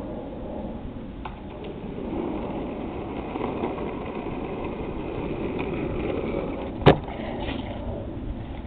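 Skateboard wheels rolling on asphalt, a steady rumble that grows louder as the board comes close. Near the end comes one sharp, loud clack.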